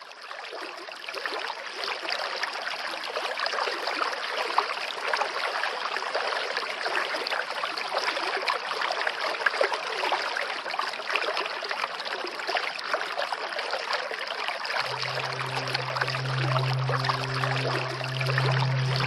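Steady rush of running water, fading in over the first second or two. About 15 seconds in, low sustained music tones come in under it.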